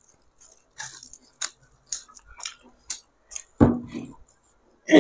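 Eating sounds from someone eating rice and egg curry by hand: wet chewing, lip smacks and the squish of rice and curry being mixed with the fingers, as a string of short sharp clicks. A brief louder low sound comes about three and a half seconds in.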